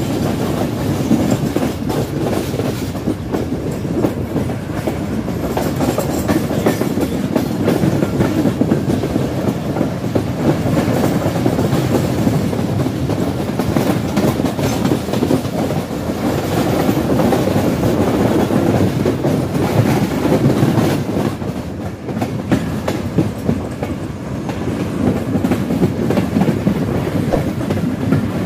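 Passenger train running at speed, heard from an open coach doorway: a steady rumble with the wheels clattering rapidly over rail joints.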